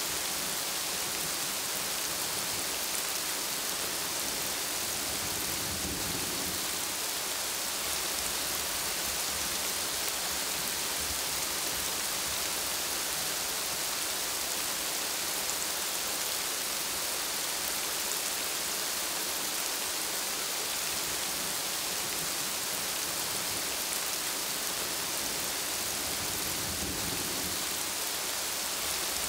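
Steady rain falling on plant leaves, an even, unbroken hiss. A low rumble comes up briefly twice, about six seconds in and near the end.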